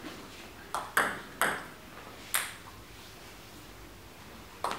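Table tennis ball bouncing with sharp clicks four times in the first half, the gaps between bounces growing longer. After a quiet stretch, another sharp hit comes near the end as the next rally starts.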